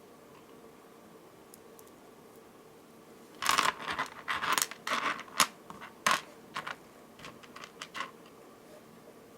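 Small beads clicking and rattling against each other as they are picked up and threaded onto necklace wire: quiet at first, then a busy run of sharp clicks about three and a half seconds in, thinning to a few single clicks.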